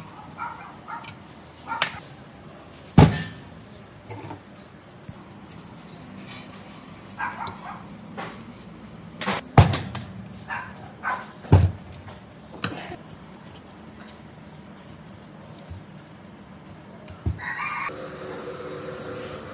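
Metal hand tools knocking, clicking and scraping against the rusty cast housing of a three-phase electric motor, in sharp irregular knocks a few seconds apart. Faint high-pitched chirping runs underneath, and a steady hum begins near the end.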